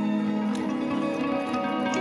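Background music with plucked-string notes over held tones.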